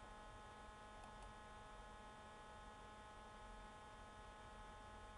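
Near silence: a faint, steady electrical hum in the recording.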